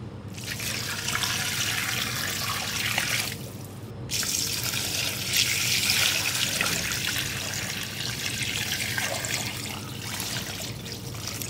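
A stream of water pouring and splashing into a metal cooking pot full of beef trotters and bones, filling it to cover the meat. The pour stops briefly about three seconds in, then runs on steadily.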